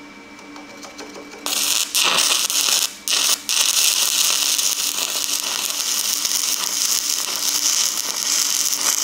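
Stick welding arc on 3/32-inch 7018 rod laying a tack weld: the arc strikes about a second and a half in, breaks off and restarts a couple of times, then crackles steadily until it cuts off sharply near the end. The welder's cooling fan hums steadily underneath.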